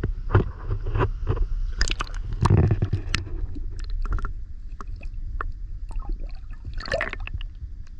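Shallow river water splashing and gurgling around hands releasing a walleye, heard partly through a camera dipped underwater: muffled sloshing with scattered knocks and bubbles, a louder surge of water about two and a half seconds in and another splash near the end.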